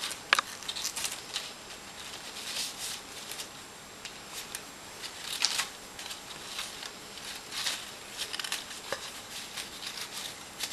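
Interlocking card pieces of a paper sliceform model being slid out of their slots and pulled apart: irregular light scrapes, rustles and small clicks of card rubbing on card.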